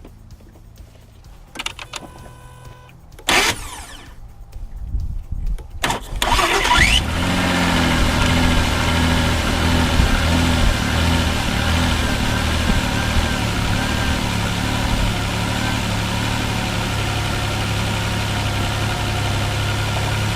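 A few knocks and clicks, then about six seconds in the starter cranks the 2004 Mazda 6's 3.0-litre V6 briefly with a rising whine, and the engine catches and settles into a steady idle. The owner takes the starting noise as a sign of a chewed-up flywheel.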